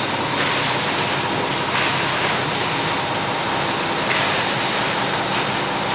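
Concrete truck's diesel engine running steadily: a constant low hum under a heavy, even rush of noise.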